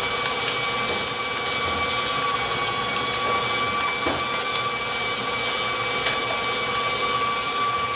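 Stand mixer running steadily with a loud, high motor whine as its flat beater creams a large batch of butter (800 g). Right at the end the motor starts to wind down, its whine falling in pitch.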